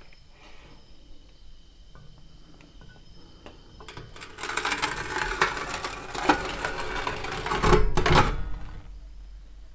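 Old metal-framed door with a patterned glass panel being pulled open, scraping and rattling for about five seconds. It starts about four seconds in and is loudest near the end.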